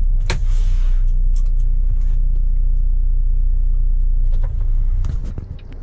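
Volvo semi truck's diesel engine idling, a steady low rumble heard inside the cab. About a third of a second in, a sharp click and a short hiss of air, like the air brakes being set, with a few light clicks near the end.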